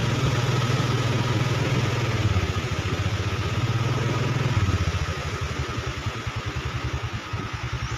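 Motorcycle engine running steadily; about halfway through its note drops and the engine's individual firing pulses come through as it eases off.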